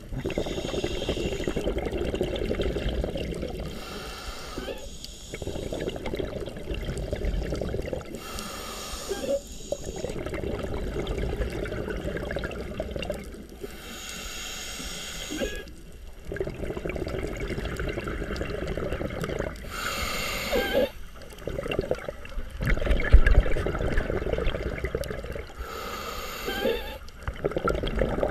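Scuba regulator breathing heard underwater. A short hissing inhale comes every five or six seconds, each followed by a longer gurgle of exhaled bubbles, and there is one louder low bump about two-thirds of the way through.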